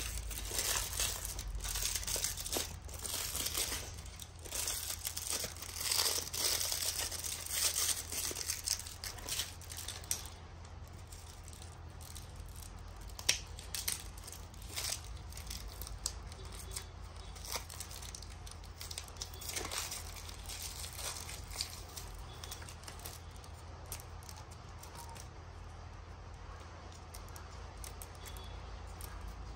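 Plastic wrapping and tape crinkling and tearing as they are peeled off a firework tube by hand, busiest for the first ten seconds, then quieter handling with scattered clicks. A steady low hum runs underneath.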